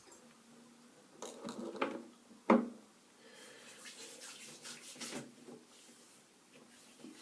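Two-phase aftershave lotion being handled and applied by hand: liquid sloshing and splashing in the hands, with one sharp knock or slap about two and a half seconds in.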